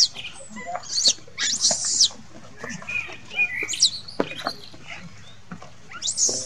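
Baby macaque crying in several short, high-pitched screams a second or more apart, each one falling in pitch.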